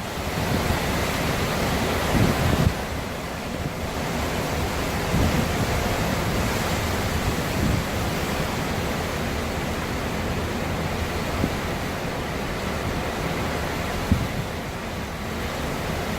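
Hurricane-force wind blowing steadily, with gusts buffeting the microphone.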